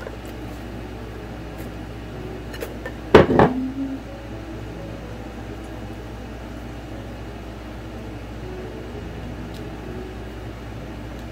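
Steady background hum while gathered fabric is worked by hand at a home sewing machine, with one short, loud clatter about three seconds in and a few faint clicks.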